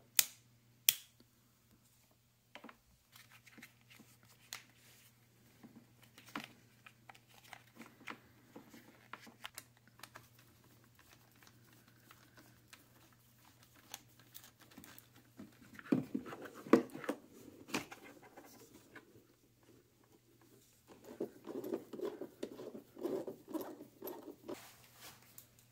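Close handling noises of wiring and parts on a mower deck: two sharp clicks near the start, then scattered taps, rustles and scratches, with bursts of scraping as a screwdriver turns screws, loudest about sixteen seconds in and again near the end. A faint steady hum runs underneath.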